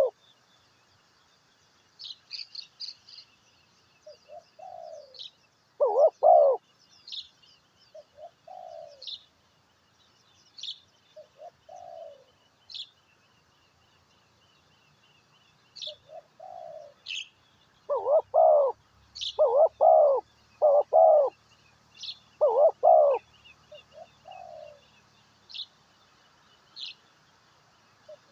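A dove cooing repeatedly in short phrases, the coos loudest about six seconds in and again in a run of four phrases in the second half, while a small bird gives short high chirps throughout.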